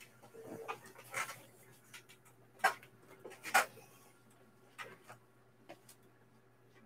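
A handful of light clicks and knocks, the two sharpest about a second apart in the middle, over a faint steady hum.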